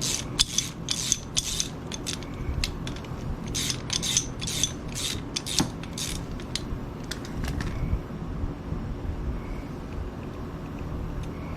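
A hand ratchet clicks in short back-and-forth strokes, roughly two a second, as a bolt is run back through damaged threads to chase and clean them. The strokes stop about eight seconds in.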